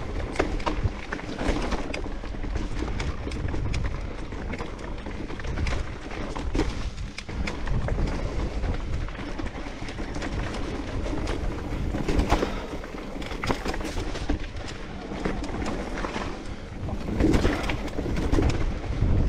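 Giant Reign E+1 electric mountain bike riding a rough forest trail: tyre noise over the ground, with frequent knocks and rattles from the bike and rumbling wind on the microphone.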